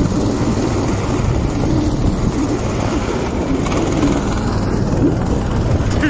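Motorised snow tow unit (a 'motor-dog' tracked tug) driving over deep snow, its small engine running steadily under way, heard up close from on board.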